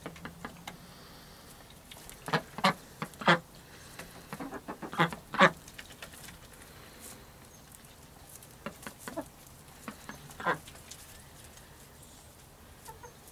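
Domestic ducks quacking. There is a run of about six loud, short quacks starting about two seconds in, then scattered softer ones, and one more loud quack about ten seconds in.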